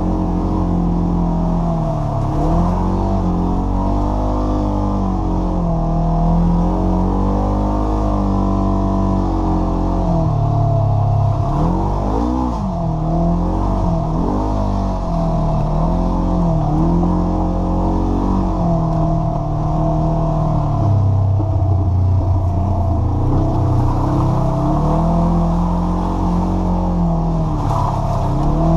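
Polaris RZR side-by-side's engine running under way, its pitch rising and falling again and again as the throttle is worked over a rough, muddy trail.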